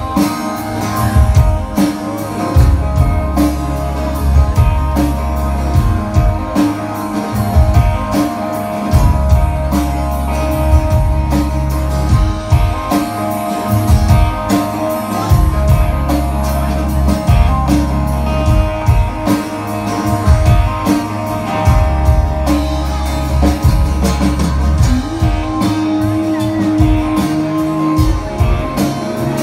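Live rock band playing, with electric and acoustic guitars, bass guitar and drums, recorded from the audience; the bass is heavy and dominant.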